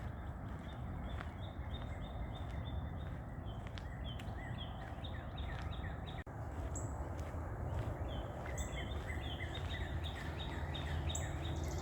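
A bird chirping in fast runs of short repeated notes, about four a second, in two bouts with a few seconds' pause between them, over a low steady rumble.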